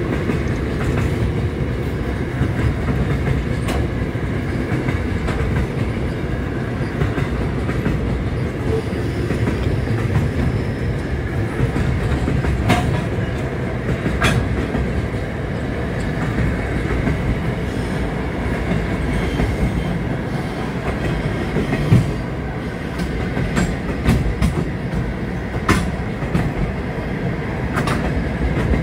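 Freight train wagons rolling past over a level crossing: a steady low rumble of steel wheels on rail, broken by occasional sharp clanks, the loudest about 22 seconds in.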